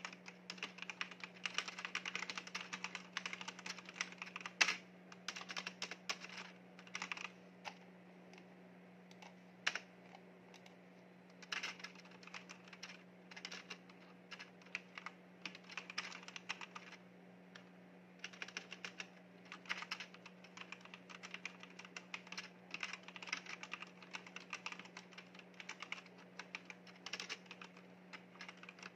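Typing on a backlit mechanical keyboard: fast runs of key clicks in bursts of a few seconds, broken by short pauses, over a faint steady low hum.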